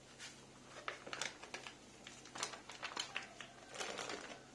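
Plastic spice packets crinkling and rustling in irregular bursts as they are handled and put away.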